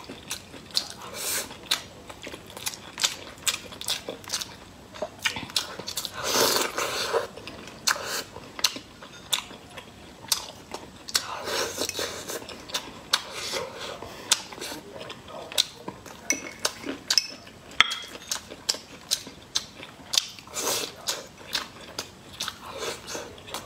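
Close-up eating sounds: chewing and biting of food, with frequent sharp clicks of chopsticks against a ceramic bowl and a few longer, noisier mouthfuls.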